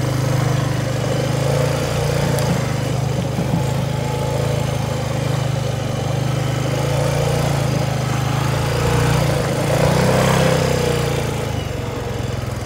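2005 Honda FourTrax ATV's single-cylinder engine running as the quad is ridden along, the engine note rising briefly and getting a little louder about nine to ten seconds in.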